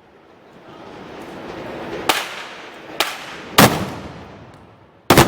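Black-powder arquebuses (festival blunderbusses) firing: four sharp blasts at uneven intervals, about two, three, three and a half and five seconds in, each with a long echoing tail.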